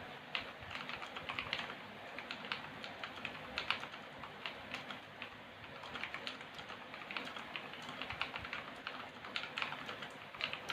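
Typing on a mechanical keyboard with Outemu Blue clicky switches lubed with hair conditioner: an irregular, continuous run of key presses. The lube has damped the blues' click so that they sound like tactile brown switches.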